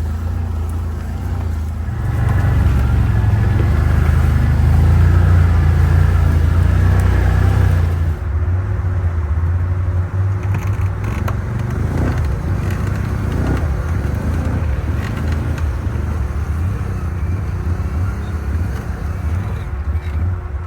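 Can-Am 6x6 side-by-side running under way, its engine louder for several seconds early on and then easing off, with a few knocks and rattles as it rolls over rough ground.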